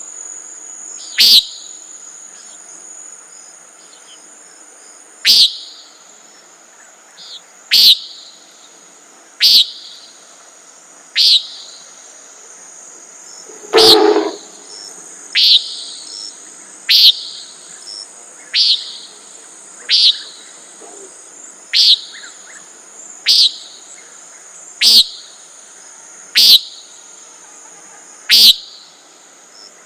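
Common nighthawk giving its short peent call over and over, about fifteen calls spaced one to four seconds apart, one about halfway through louder and with a lower rushing part. Insects trill steadily and high underneath.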